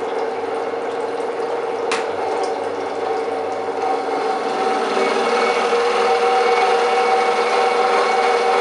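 Portable reverse-osmosis desalination unit's high-pressure pump running steadily with a motor hum, with one sharp click about two seconds in. The pump gets louder about five seconds in as the case lid is opened.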